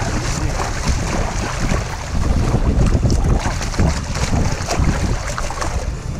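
Wind buffeting the microphone over open-sea water sloshing and splashing against a kayak, with splashes from a landed sailfish held at the surface alongside.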